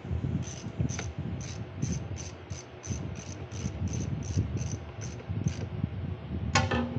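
Insect chirping: a short high chirp repeated about three times a second, stopping about five and a half seconds in, over a low rumble. Two sharp knocks near the end.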